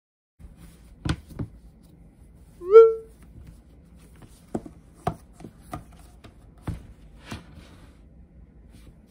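An iPad in a folio case being handled on a wooden desk: scattered clicks and light knocks as the cover is folded open and an Apple Pencil taps the screen. About three seconds in there is a short rising pitched squeak, the loudest sound here.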